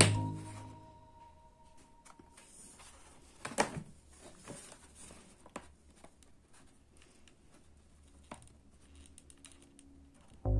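Faint handling noises from gluing cardboard with a hot glue gun: a few scattered light clicks and short rustles of card, the loudest about three and a half seconds in.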